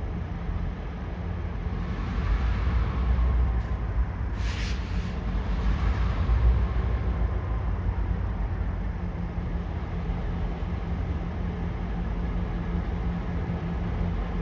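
Diesel-electric locomotive engine running steadily during switching moves, with a brief hiss about four and a half seconds in.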